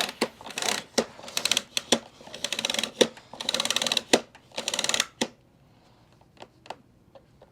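Rapid clicking rattle in several bursts from a SEBO E3 vacuum's cord rewind reel as the power cord is pulled out of it. The clicking stops about five seconds in, and only a few faint clicks follow.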